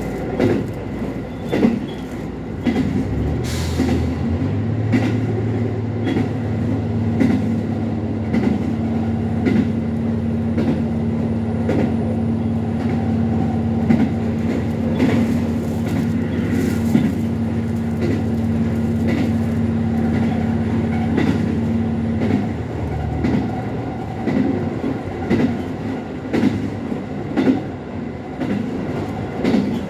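H100 diesel-electric railcar running, heard from on board: wheels rumbling on the rails with scattered clicks over rail joints. A steady low hum from its drive sets in about three seconds in and cuts off a few seconds before the end, as power is shut off and the car coasts.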